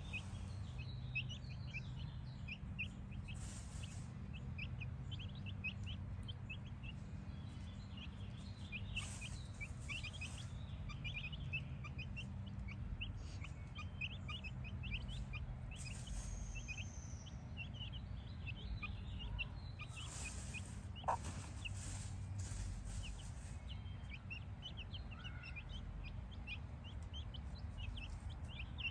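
A brood of Brahma chicks peeping as they forage, many short high cheeps one after another, over a low steady rumble.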